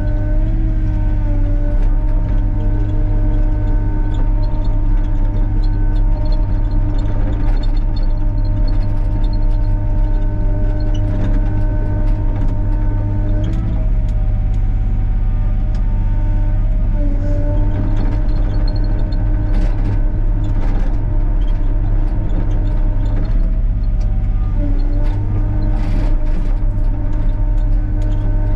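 Excavator's diesel engine and hydraulics running under work, a steady heavy rumble with a whine that steps in pitch several times as the boom, stick and bucket are worked. Scattered knocks in the second half.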